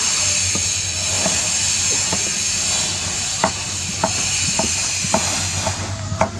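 Kitchen knife slicing red pepper on a wooden chopping block, its blade knocking the board about twice a second, over a steady high hiss that stops near the end.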